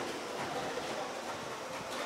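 Steady ambient noise from a football pitch during play, with a few faint short sharp sounds.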